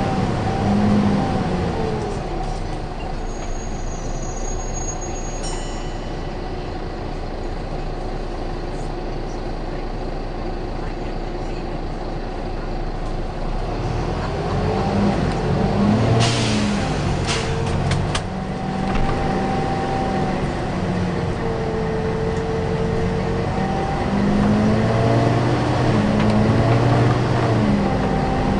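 Volvo B9TL double-decker bus's diesel engine heard on board, running quietly and steadily at first, then pulling away and working up through the gears in the second half. About halfway through, a short, loud hiss of compressed air being released.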